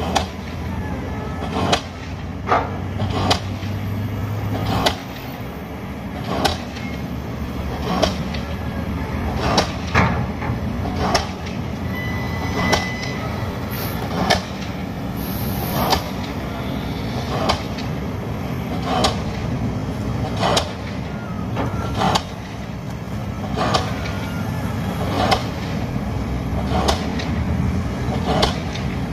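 Pile driver's hammer striking a pile at a steady beat, about one blow every second and a half, over the continuous low rumble of heavy machinery engines.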